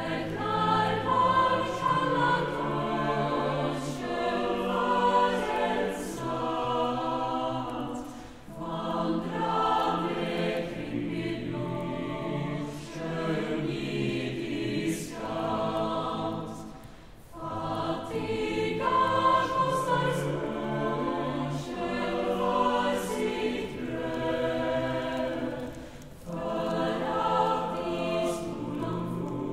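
Choir singing slow, sustained phrases, each about eight or nine seconds long, with a short break between them.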